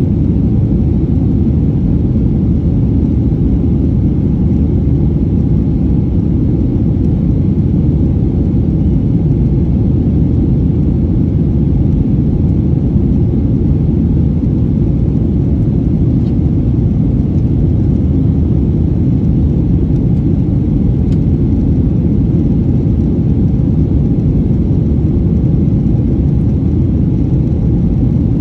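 Steady low cabin rumble of a Boeing 737-900 in its climb after takeoff, heard inside the cabin over the wing: the drone of its CFM56-7B turbofan engines mixed with airflow noise.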